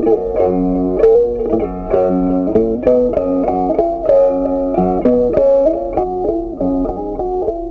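Background music: an instrumental tune of plucked guitar notes.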